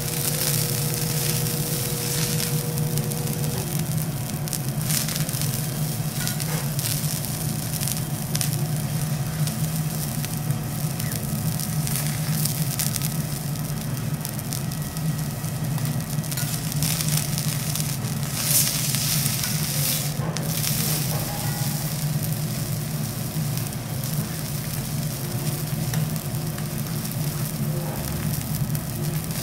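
Wagyu steak sizzling on a hot steel teppanyaki griddle: a steady frying hiss with scattered crackles, over a steady low hum.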